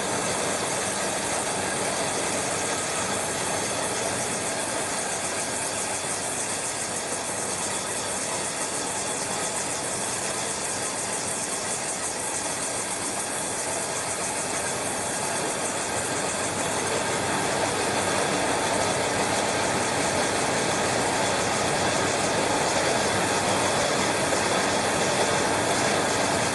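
Aerosol tin can vacuum leak tester running: steady machine noise with a constant rush of air, a little louder in the second half.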